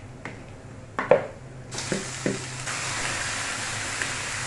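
Raw chicken pieces being scraped with a wooden spoon from a plastic bowl into a wok of hot oil with sautéed onion, garlic and ginger. A few knocks of spoon and meat come first, the loudest about a second in. Then, about two seconds in, the chicken hits the hot oil and a loud steady sizzle starts.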